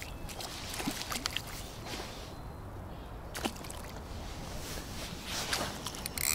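Water splashing as a small hooked pike thrashes at the surface while it is reeled in, with a few faint knocks and a louder splash at the very end.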